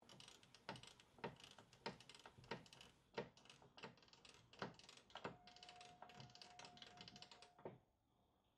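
Faint, sharp mechanical clicking, about two strong clicks a second with lighter ticks between, joined in the second half by a faint steady tone; both stop shortly before the end.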